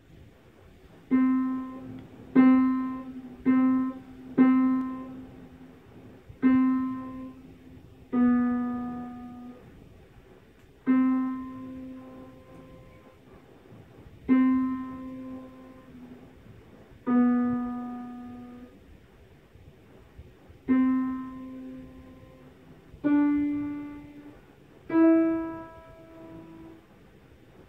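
Upright piano played slowly by a beginner, one note at a time: about a dozen single notes near middle C, each struck and left to ring and fade, at an uneven pace. The last two notes step higher.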